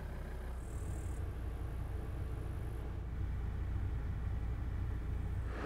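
Volvo XC70's engine idling with a steady low rumble, running so the alternator feeds the DC-DC charger.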